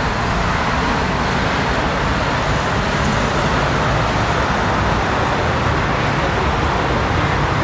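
Steady city traffic noise: the even rumble of road vehicles.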